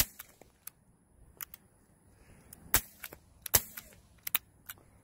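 Suppressed Nagant M1895 revolver with a Dead Air Wolf 9SD silencer firing three quiet shots: one at the start, then two less than a second apart. Its cylinder locks forward against the barrel to seal the gas, which keeps the report low. Fainter sharp ticks fall between the shots.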